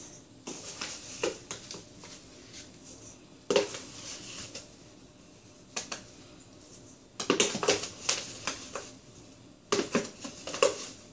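A plastic measuring cup scooping flour from a plastic container and emptying it into a stainless steel mixing bowl: scattered knocks, taps and scrapes of the cup against the container and bowl, with a single sharper knock about three and a half seconds in and a cluster of them between seven and nine seconds.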